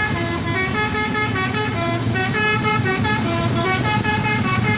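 Telolet multi-tone musical horn playing a quick tune of stepped notes, with a brief pause about two seconds in. A steady low hum runs underneath.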